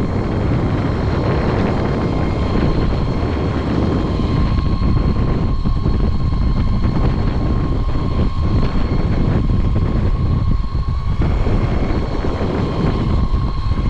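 Wind buffeting the microphone of a camera riding on an electric skateboard at full power, with a thin steady whine from the board's electric motor.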